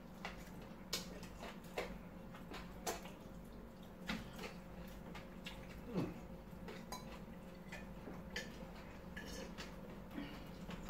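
Quiet eating sounds: scattered soft clicks and taps, roughly one every second or so, from eating by hand off a foil tray, over a faint steady hum.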